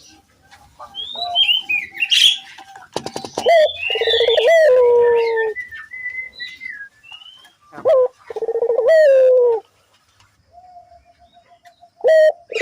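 Puter doves cooing: two long, drawn-out coos, about three seconds in and again near nine seconds, with smaller birds chirping and whistling between them.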